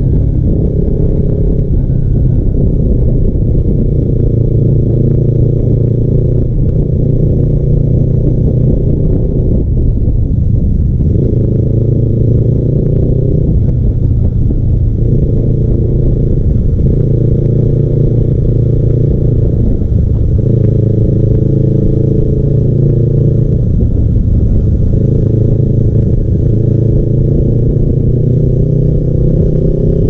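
Kawasaki Ninja 300's parallel-twin engine through a custom aftermarket exhaust, heard from the rider's seat while under way. The engine note swells and drops back every few seconds with the throttle, and climbs again near the end.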